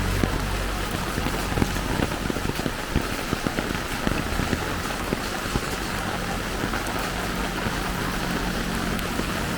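Heavy tropical rain falling: a steady hiss with many close, sharp drop hits. A faint low engine hum fades out about a second in and returns faintly from about the middle.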